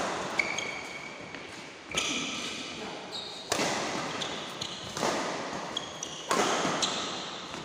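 Badminton rackets striking a shuttlecock in a rally: about five sharp hits roughly a second and a half apart, each ringing on in the hall. Short high squeaks come between the hits, typical of court shoes on the floor.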